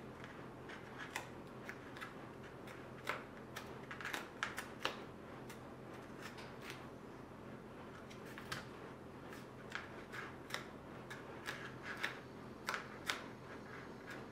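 Faint scattered clicks, taps and rustles of hands handling EVA foam flower petals and a small plastic glue bottle, over a low steady hum.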